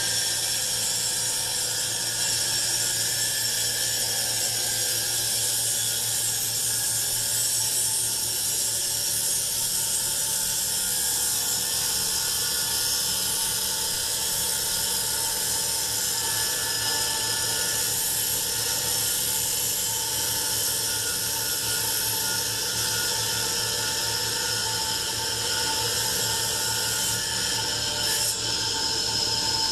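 Wet tile saw with a continuous-rim diamond blade running steadily with a high whine, cutting a wafer from a block of plastic-embedded dinosaur bone under a stream of cooling water.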